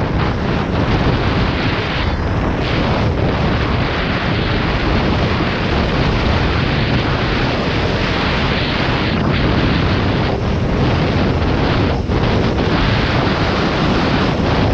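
Steady, heavy wind noise on a GoPro Hero 6's microphone at riding speed on a KTM Duke 390 motorcycle, with the bike's engine and tyre noise mixed underneath. There are a few brief dips.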